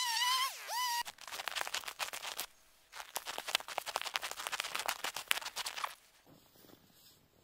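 Stihl chainsaw cutting a birch log, its pitch repeatedly dipping and rising, cut off abruptly about a second in. Then rapid crunching footsteps in snow and sawdust, thinning out near the end.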